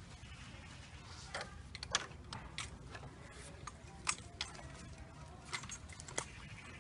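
Bicycle being handled and wheeled over a leaf-strewn forest path: irregular metallic clicks and rattles, a few of them sharper and louder, over a low rumble.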